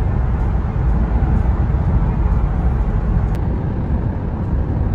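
Steady road noise heard from inside the cabin of a van moving at highway speed: an even low rumble.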